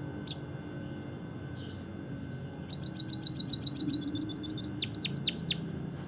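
White-headed munia singing: a single chirp, then a fast run of high ticking notes that turns into a short trill and ends in four sharp downward-sweeping notes.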